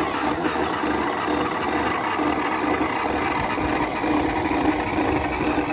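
Outboard power trim and tilt motor-pump running steadily under power, a loud electric whir with a constant hum. It sounds rough enough that the owner suspects low trim fluid or a failing trim pump.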